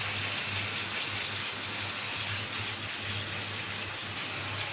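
T-bone steak frying on low heat in olive oil and butter: a steady, even sizzle. A low, steady hum sits underneath.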